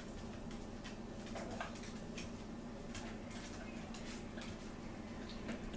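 Faint scattered clicks and scrapes of a knife cutting through an ice cream cake, over a steady low hum.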